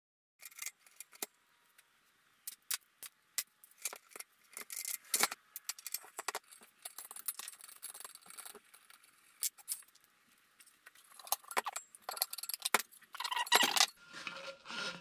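Small metal parts and hand tools clicking and clinking on a wooden benchtop as an overarm saw blade guard is taken apart: loose washers, nuts and bolts, a ratchet set down. Louder rubbing and scraping near the end as the guard's long metal tube is handled.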